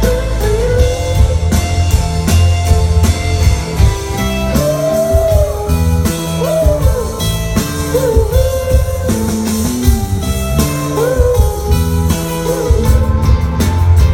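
Rock band playing live: drums, bass and guitars between sung lines, with a melody line that bends up and down in pitch over a steady beat.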